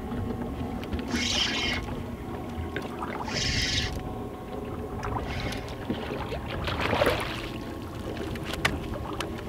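A hooked walleye being reeled in and landed over the side of a boat: three short hissy bursts of line and reel in the first four seconds, and a louder splash about seven seconds in as the fish comes out of the water.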